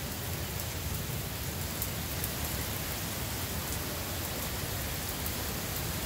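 Heavy rain pouring down: a steady, even hiss of downpour, with a few faint ticks of drops striking close by.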